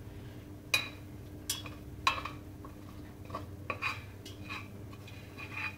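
A spoon clinking and scraping against a stainless steel saucepan in a string of sharp, irregular knocks, each ringing briefly. It is working out meat sauce that has stuck to the bottom of the pan from too little stirring.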